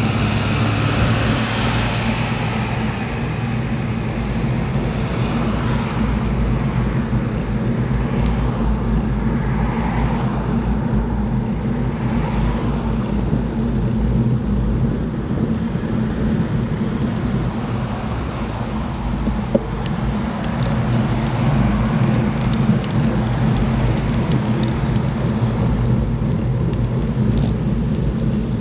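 Wind rumbling steadily on a bicycle-mounted camera's microphone while riding on the road, with a few motor vehicles swishing past.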